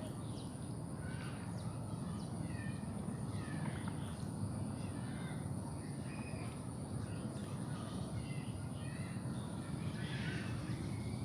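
Outdoor ambience of scattered short bird chirps over a steady low rumble and a constant thin high-pitched tone.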